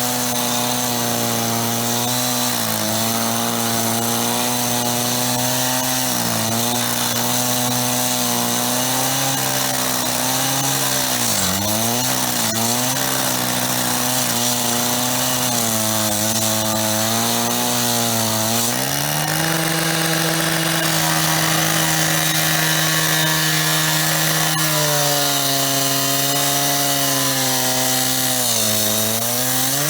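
Motor-driven power saw cutting into the metal of a payphone. It runs continuously with a hissing cutting noise, and its motor note dips several times as it is pressed into the cut, running higher for a stretch after the middle.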